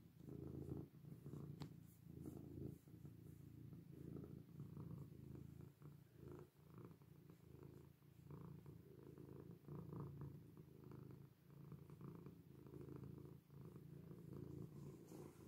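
Tabby cat purring steadily while being stroked, the purr swelling and dipping with each breath about once a second.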